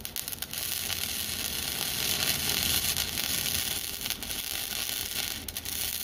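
Electric arc welding a new steel plate onto a rusted trailer frame: the arc's steady hiss, broken off briefly near the start and again about five and a half seconds in.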